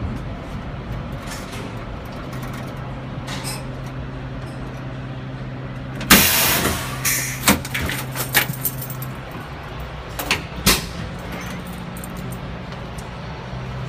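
Cab of an R38/R40 slant subway car with SMEE air brakes: a steady low hum, with a sharp burst of air hissing about six seconds in as the brake handle is worked. Several clicks and knocks from the cab controls follow.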